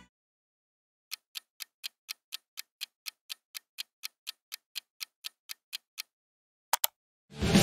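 Clock-ticking countdown sound effect: sharp, even ticks at about four a second for some five seconds, followed by two quick clicks in close succession.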